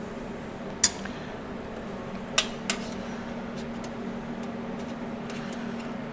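Sharp metallic clinks of stainless steel parts or tools being handled: one about a second in, then two close together about two and a half seconds in, over a steady low hum.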